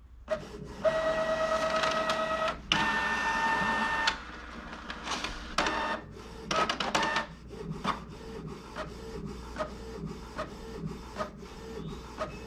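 Canon Pixma TR4520 inkjet printer working through a double-sided colour print. Its motors whine at one steady pitch, then at another, each for a second or two. Then come a run of clicks and a regular light ticking, about two a second, as the mechanism moves across the page.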